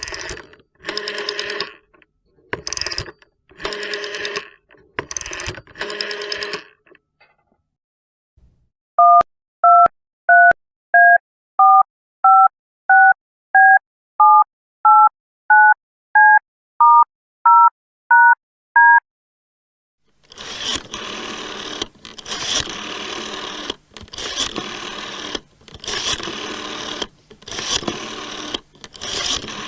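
Telephone sounds in sequence. First come several short ringing bursts, about a second apart. Then about seventeen keypad dialing beeps (DTMF, each one two tones at once) follow evenly spaced, and after a short pause a harsh, noisy, pulsing sound starts about two-thirds of the way in.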